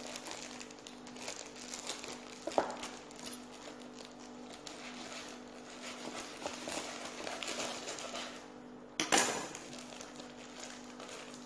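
Plastic bag crinkling as powdered cake mix is squeezed and shaken out of it into a ceramic bowl, with a sharp knock about two and a half seconds in and a louder one about nine seconds in. A steady low hum runs underneath.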